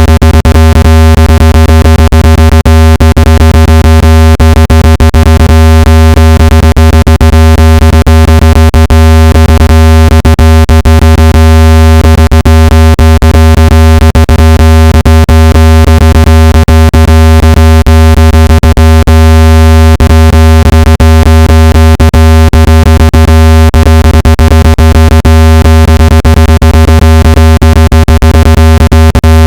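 Loud, steady, low electronic cleaning tone with a buzzy stack of overtones, broken by frequent rapid clicks. It is a speaker-cleaning tone, played at full volume to vibrate dust and moisture out of a phone speaker.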